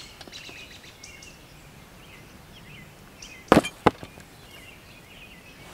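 Two quick slashes of an SOG field knife into a ballistic scarf draped over a target board, sharp strikes about a third of a second apart, past the middle. The blade cuts through the scarf: it is not slash-proof.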